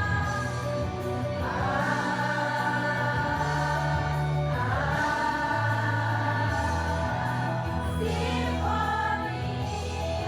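Choir singing long held notes, with new phrases starting about a second and a half in and again about four and a half seconds in.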